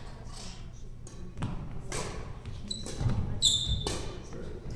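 Badminton rally: sharp racket hits on the shuttlecock and thuds of footsteps on a wooden court floor, with a short shoe squeak about three and a half seconds in.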